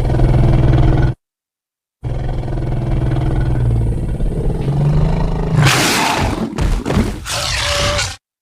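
Sinotyrannus dinosaur roar sound effects. A short low roar ends about a second in. After a brief silence comes a long, deep, pitched roar that rises slightly, then breaks into a harsh, raspy screech near the end.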